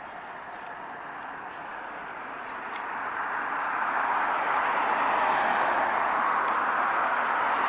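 A car approaching on the road, its tyre and engine noise swelling about three seconds in and staying loud.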